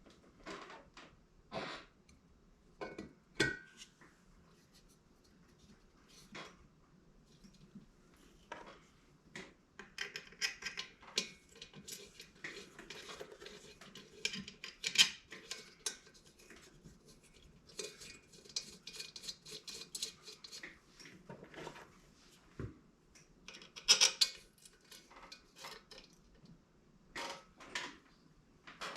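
Metal hand tools and small metal parts clinking and rattling in a scattered run of clicks and knocks, with denser clattering in the middle and sharp clinks about halfway and again past two-thirds of the way through.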